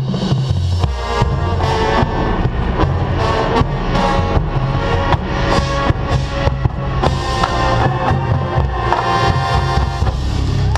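Marching band playing: brass holding sustained chords over a drumline, with frequent sharp bass drum and snare hits.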